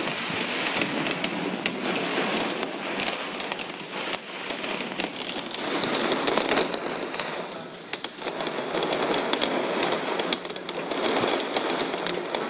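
Hail pelting down: a dense patter of sharp hailstone hits over a steady rush, swelling and easing every few seconds.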